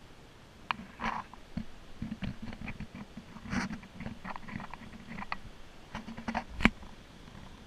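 Irregular close taps, clicks and scuffs of someone clambering barefoot over rock, with one sharper knock near the end.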